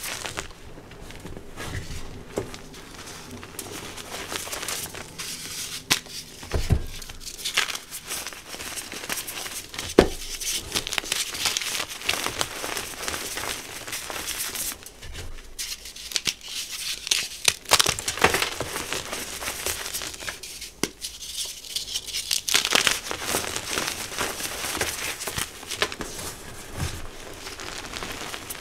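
Old reformed gym chalk blocks crushed and crumbled in the hands, a dense dry crunching and crumbling as the chalk breaks up into powder. A few sharper cracks stand out as harder chunks snap, the loudest about ten seconds in.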